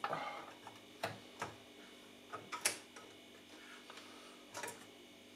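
Scattered light clicks and taps, about six of them, the loudest a little under three seconds in, from meter test probes and clip leads being handled against the amplifier's transistors, boards and chassis.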